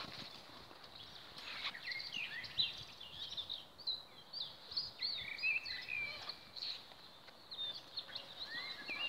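Small birds chirping, with many short, quick notes that start about a second and a half in and keep on throughout.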